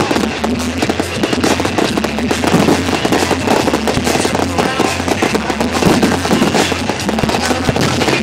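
Aerial fireworks bursting and crackling in a dense, continuous barrage of rapid bangs and crackles.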